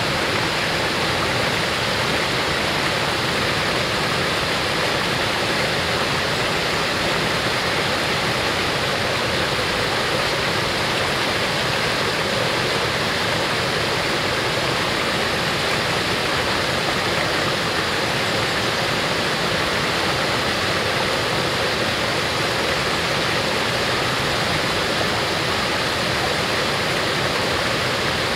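Small waterfall pouring down a rocky drop into a fast stream: a steady, unbroken rush of falling and churning water.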